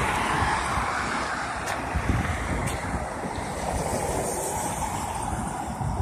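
Wind buffeting the phone's microphone in uneven gusts over the steady noise of passing street traffic.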